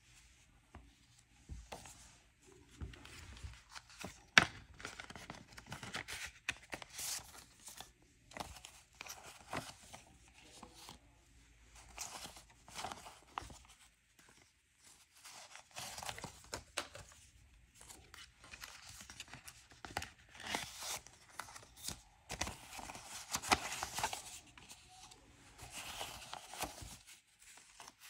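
Paper banknotes and envelopes being handled and counted by hand, in uneven spells of rustling and crinkling with scattered taps. A sharp click about four seconds in is the loudest event.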